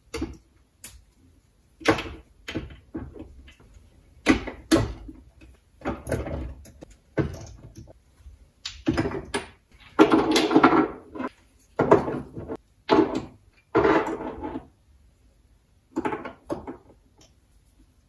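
Spice jars and containers being set down and pushed into place on cupboard shelves: a run of irregular knocks and clinks, with a few longer scraping slides.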